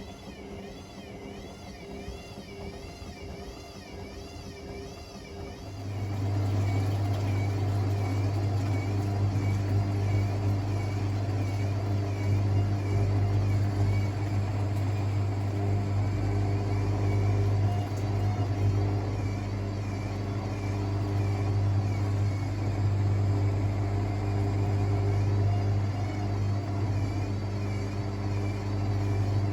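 Hotpoint WML540 washing machine running mid-cycle, with a wavering high whine. About six seconds in, a loud steady low hum starts up and carries on.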